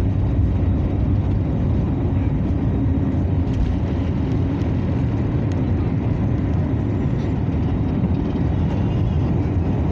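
Steady engine and air noise inside the cabin of an Airbus A321neo airliner, heavy in the low end and unchanging in pitch.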